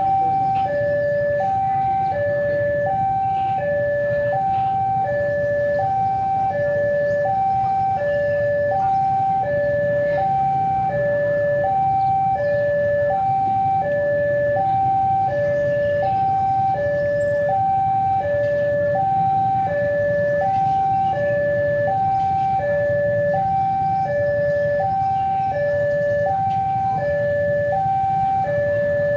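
Railway level-crossing warning alarm sounding for an approaching train: an electronic two-tone signal alternating between a higher and a lower note, about one high-low cycle a second, over a steady low rumble.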